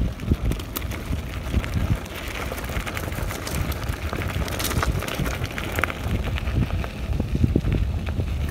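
Mountain bike rolling over a bumpy gravel track: a steady low rumble of tyres on gravel and wind on the microphone, with frequent quick rattles and knocks as the bike jolts over stones.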